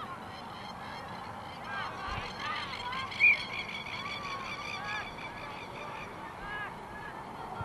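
Repeated honking bird calls, like geese, in short arched notes. A sharp, shrill high note stands out about three seconds in and is the loudest thing.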